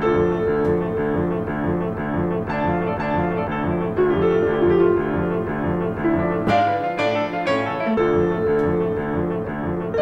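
Instrumental music with a fast, repeating pitched figure over a pulsing low line. The low line drops out for about a second and a half around two-thirds of the way through, then returns.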